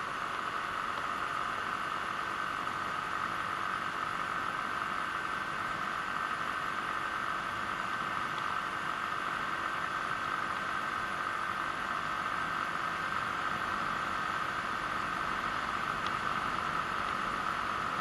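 Steady wind rush and running noise of a Genuine Buddy 125 scooter cruising at an even speed, picked up by a chest-mounted action camera as a constant hiss.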